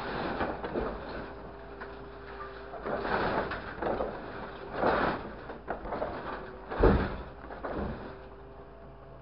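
Scrap metal clattering and scraping in a steel truck bed as a grapple truck's hydraulic grapple drops and rakes it. There are several loud crashes, the loudest about seven seconds in, over a steady machine hum.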